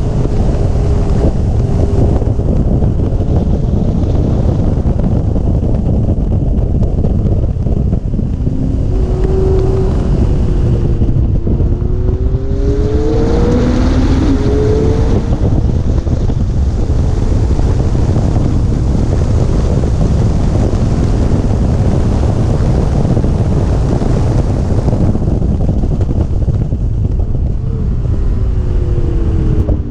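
Heavy wind buffeting on an exterior camera on a McLaren 650S at track speed, with the car's twin-turbo V8 heard underneath. The engine note glides up and down a few times, clearest past the middle and near the end.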